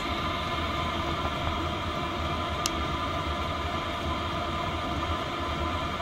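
A 12V all-in-one Chinese diesel air heater running steadily in its low "purring away" setting, its blower fan and burner giving a constant whirring hum. One short click sounds about two and a half seconds in.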